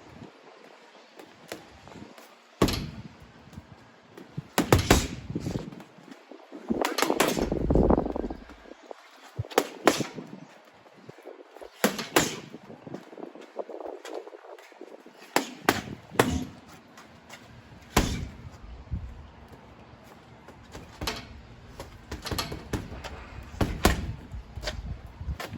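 Boxing gloves landing on a punch bag: single thuds and quick one-two pairs at irregular intervals, hooks among them, with a short flurry of rougher, scuffing noise about seven seconds in.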